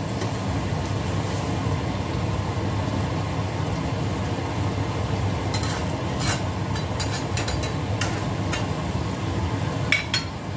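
Fish simmering in a sweet soy-sauce braise in a frying pan on a gas stove, a steady low noise. A spatula stirs it, with a series of sharp clicks against the pan from about halfway in.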